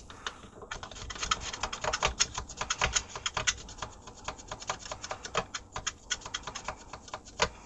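Rapid, irregular clicking and scratching of the volume control potentiometer on a 1987 Philips AE2402/05 radio being worked back and forth after a squirt of contact cleaner, an attempt to free a resistor track thought to be dirty.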